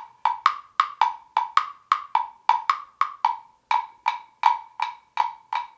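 Woodblock struck in a steady trotting rhythm, about four sharp, ringing knocks a second, used to imitate a horse's hoofbeats.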